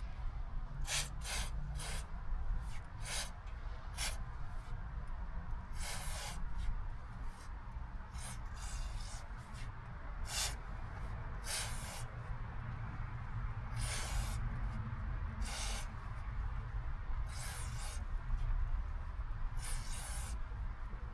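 Aerosol chain cleaner sprayed onto a motorcycle chain in about a dozen hissing bursts, some short and some held for about half a second, over a steady low hum.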